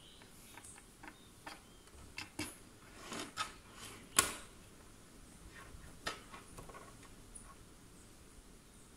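Fine-tip ink pen drawing short strokes on a paper tile: a scatter of faint scratches and ticks, the sharpest a little after four seconds.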